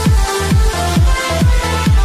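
Electronic dance music with a steady kick drum at about two beats a second under sustained synth chords.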